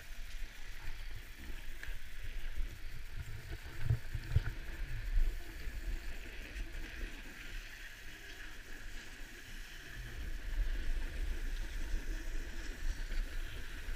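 Gliding slowly over packed snow: a steady hiss of snow under the edges, with wind buffeting the microphone in uneven low rumbles that swell about four seconds in and again near the end.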